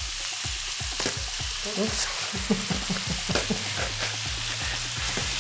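Onions and bell peppers sizzling steadily in a hot stainless steel frying pan as tomato sauce is poured in and stirred, with a few sharp taps of the utensil against the pan.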